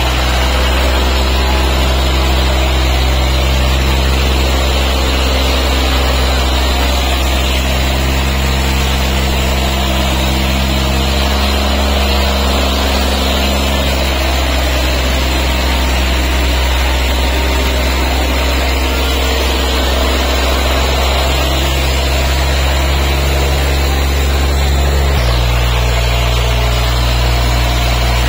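Diesel tractor engines running hard at steady high revs with a deep, continuous drone, pulling against each other under load. The engine note changes abruptly near the end.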